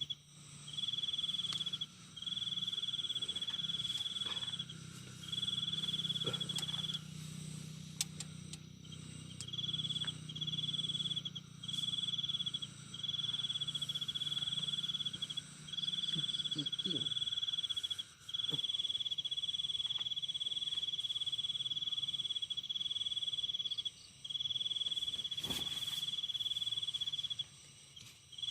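Night insects trilling: one loud, high, steady trill comes in runs of one to three seconds with short breaks between, over a fainter chorus of other insects. A faint low hum sits underneath until about two-thirds of the way through.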